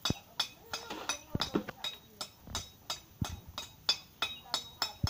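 Repeated sharp metallic clinks and knocks of tools on concrete blocks and masonry, a few a second, with voices faintly in the background.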